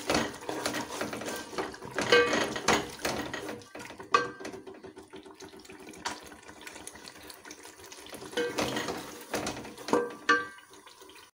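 Wooden spatula stirring green peas into a wet tomato masala in a metal pot: scraping and knocking against the pot with wet squelching. It comes in spells, with a quieter stretch in the middle.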